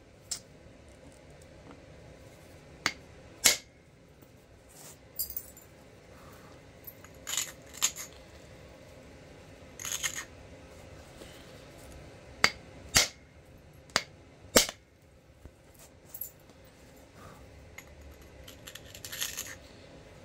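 Flint knapping: sharp, irregular clicks of an antler punch striking a flint piece as flakes are driven off, about a dozen strikes, some in quick pairs, with faint handling rustle between. The flint is very crumbly and powdery.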